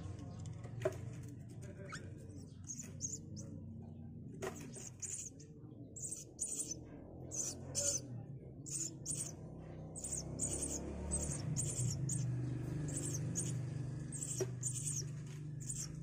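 Javan myna nestlings in a nest box giving high, thin begging chirps in short quick clusters, starting a couple of seconds in, over a steady low hum.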